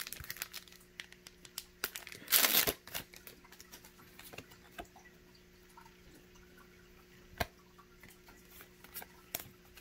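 Foil Pokémon booster pack wrapper being handled: a loud half-second rip about two and a half seconds in, then scattered light clicks and taps of card handling.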